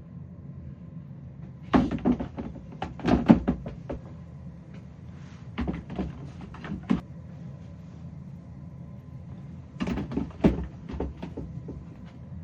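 Three bouts of knocking and clattering as hard objects are handled and set down, over a steady low background hum.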